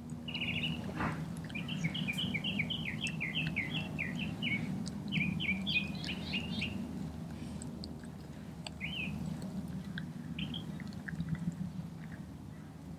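A songbird sings a fast run of chirps through the first half, with a lone chirp later on, over a low steady hum. Underneath come scattered wet clicks of a dog licking and chewing a raw feathered chicken.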